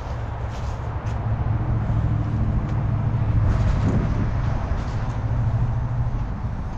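An engine running steadily with a low hum, swelling a little about halfway through.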